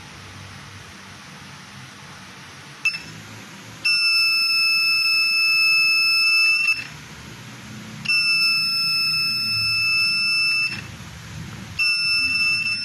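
Buzzer of a homemade magnet-switch door alarm sounding a steady, high-pitched beep. A short chirp comes about three seconds in, then a long tone of about three seconds, a second of about two and a half seconds, and a third starting near the end, with roughly a second of pause between them.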